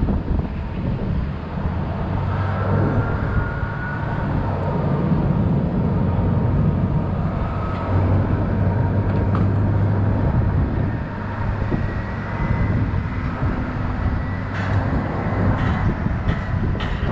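Steady airport apron noise from aircraft and ground vehicles: a low rumble with a constant thin whine, and a few faint rising and falling engine tones.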